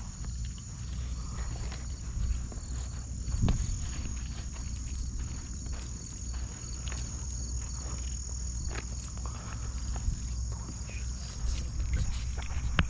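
Steady high-pitched insect chorus over a low rumble, with scattered knocks and clicks.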